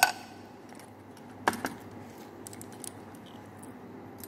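Two sharp handling clicks, one at the very start and another about a second and a half in, with a few faint ticks after, over a low steady hum.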